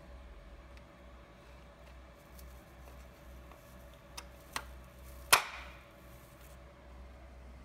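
Nylon brush attachment being fitted onto a steam vacuum's clear plastic extraction nozzle: two light plastic clicks, then a sharp snap about five seconds in as it locks into place, over a faint low hum.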